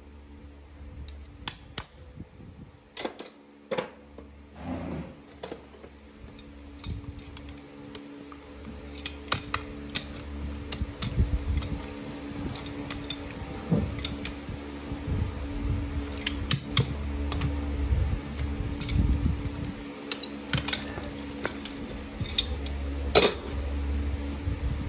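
Farrier's hammer and hand tools working nails and a steel horseshoe on a horse's hoof set on a hoof stand: scattered sharp metal taps and clinks, over a steady low hum.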